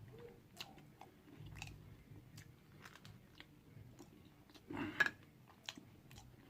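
Close-up chewing of food, with small wet mouth clicks throughout and one louder brief mouth sound about five seconds in.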